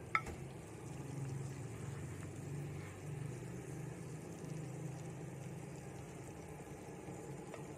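A single sharp clink just after the start, as chopsticks touch the plate or pan, over the frying of fermented rat pieces in oil in a nonstick pan and a steady low hum.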